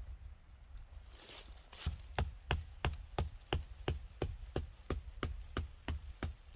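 A fast, even series of sharp knocks, about three a second, starting about two seconds in and carrying on steadily.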